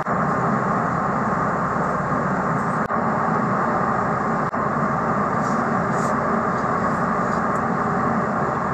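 Steady airliner cabin noise in cruise, the even hum of engines and air. A few faint slurps and clinks rise above it as ramyeon noodles are eaten with chopsticks and a spoon, about five seconds in and near the end.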